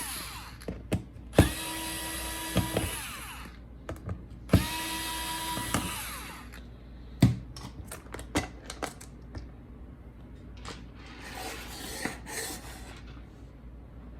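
Small electric screwdriver running in two short bursts, each spinning up with a brief rising whine into a steady hum, then sharp clicks and handling noise as screws and parts come loose.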